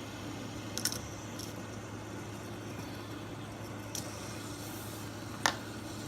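A few short sharp clacks of a plastic water bottle being flipped and knocking down onto a surface, the loudest about five and a half seconds in, over a steady low room hum.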